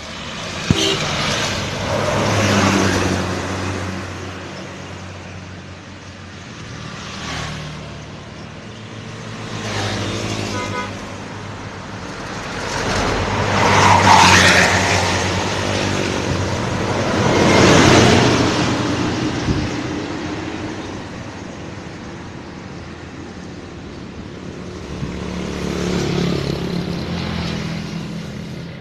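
Several large intercity buses passing one after another, each engine swelling up and fading as it goes by, with short multi-tone 'telolet' horn blasts about ten and fourteen seconds in.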